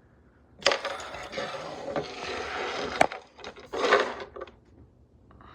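Handling noise of objects being moved about close to the microphone: a stretch of rustling and scraping that ends in a sharp click about three seconds in, then a shorter burst of rustling about a second later.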